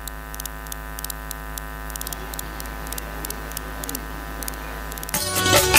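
Steady electrical hum and buzz from a public-address sound system, with faint regular clicking crackle. Music begins about five seconds in.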